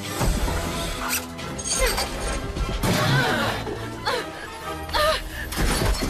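Cartoon crash effects of a car slamming into a building wall: several heavy crashing impacts over background music.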